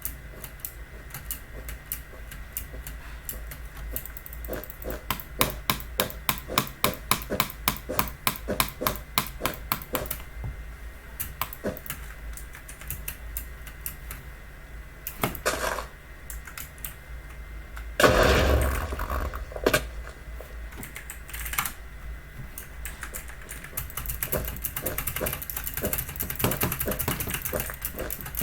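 Keys clicking on a Logitech mechanical keyboard with clicky blue-style switches. It is typed in a fast, steady run, then in sparser strokes, with a louder thump about two-thirds of the way through.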